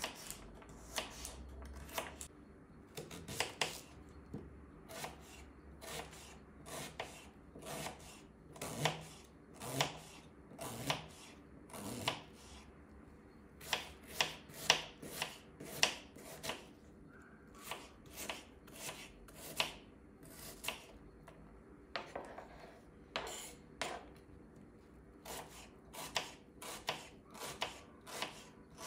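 Kitchen knife chopping on a bamboo cutting board, dicing a carrot and then an onion: a string of sharp knocks of blade on wood, about one or two a second, with a few quicker runs.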